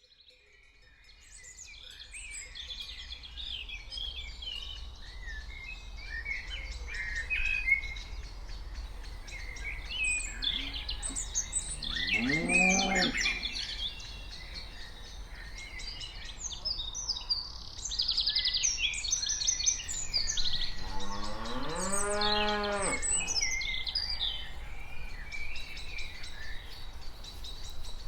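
Cows mooing twice, a short moo about twelve seconds in and a longer one near twenty-one seconds, with birds chirping throughout.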